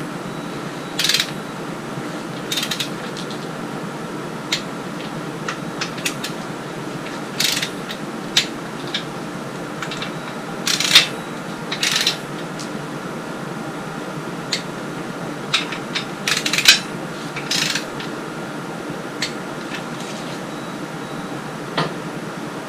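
Wrench ratcheting and sharp metal clicks and clinks, coming in short scattered bursts, as the main bearing cap bolts of an International C-60 engine are run down to a first stage of 25 foot-pounds. A steady low hum runs underneath.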